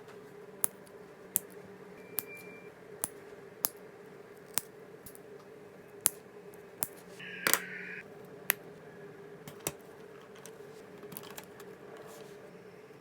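Hard plastic LEGO Technic pieces clicking and clacking as they are handled and pressed together: about a dozen sharp, separate clicks at uneven spacing, with a cluster a little past halfway. A steady low hum runs underneath.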